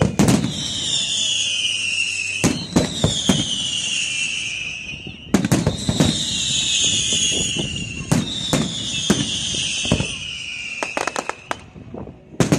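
Fireworks display: sharp bangs of shells bursting, some in quick pairs, over a series of long whistles that each fall in pitch for about two seconds. Near the end comes a quick run of crackling bangs.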